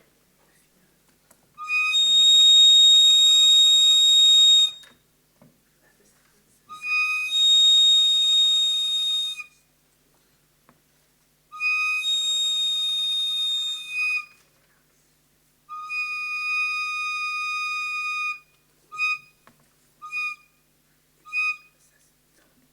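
Indigenous ceremonial whistle blown seven times, a steady high pitch: four long blasts of two to three seconds each, then three short toots about a second apart near the end. In ceremony the whistle is blown to recognize life, the movement and sound of life.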